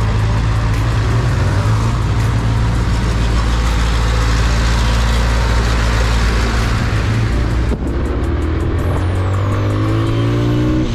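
Motorcycle engine running under way with a steady low drone and wind rush. About eight seconds in the sound breaks off briefly, then a rising whine climbs to the end.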